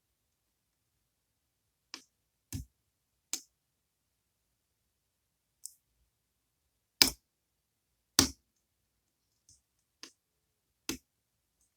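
Lock pick working the spool pins of a Goal Z pin tumbler lock: about nine short, sharp clicks at irregular intervals, a few of them louder, as pins are lifted and set.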